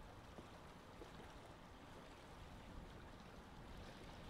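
Faint, steady outdoor ambience of wind and choppy water: a low, fluttering rumble under an even hiss, with no distinct events.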